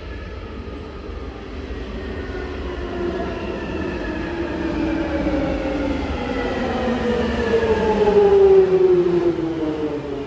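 London Underground Jubilee Line 1996 Stock train pulling into the platform and slowing: a low rumble under several whining tones that fall in pitch, growing louder to a peak a little past eight seconds in.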